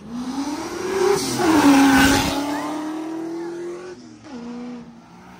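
A car accelerating hard past the crowd, its engine note climbing, dipping once about a second and a half in, then climbing again. It is loudest about two seconds in and fades away after about four seconds.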